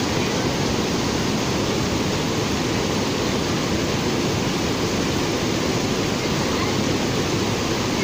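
Steady rush of water spilling over a wide, low cascade of rock ledges.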